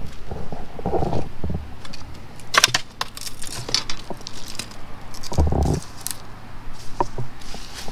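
Scattered light clinks and rattles of small hard objects knocking together, with a dull thump about five and a half seconds in.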